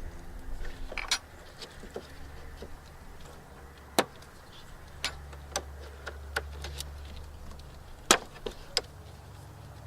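Irregular sharp metallic clicks and taps of hand tools working on a car battery terminal, about eight in all with the loudest about four and eight seconds in, over a low steady hum.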